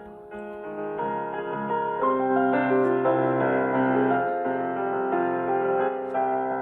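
Background music: soft piano chords played on alone.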